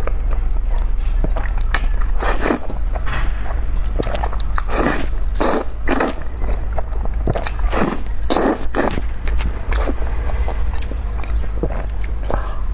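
Close-miked eating sounds: a person biting and chewing food, a string of short sharp sounds following one another, over a steady low hum.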